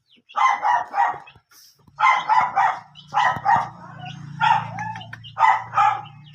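Village dog barking in quick runs of short barks, several clusters a second or so apart. A low steady hum runs underneath from about two seconds in.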